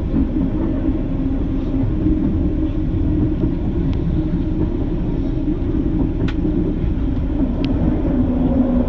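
Detroit People Mover automated train running along its guideway, heard from inside the car: a steady rumble with a low hum, and a few sharp clicks, around four, six and near eight seconds in.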